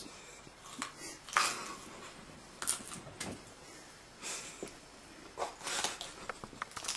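Scattered soft rustles and scuffs, with a few brief sharp clicks, from movement close to the microphone: fabric, bedding and camera handling as someone sneaks up on a sleeper in a quiet room.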